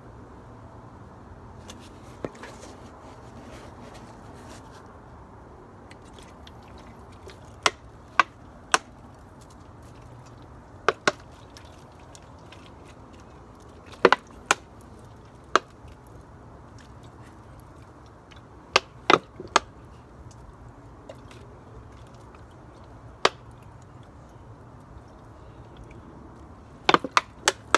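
Scattered sharp clicks and knocks, often in twos or threes, over a steady low hum, as a plastic bottle of charcoal lighter fluid is squeezed and handled over wood.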